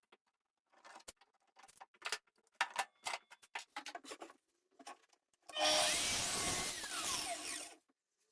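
A series of light clicks and knocks from tools and wooden parts being handled. About five and a half seconds in, a power tool runs loudly for about two seconds, then stops.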